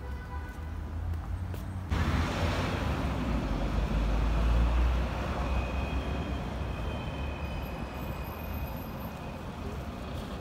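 Outdoor city traffic noise: an even rush with a heavy low rumble, suddenly louder about two seconds in and loudest around four to five seconds.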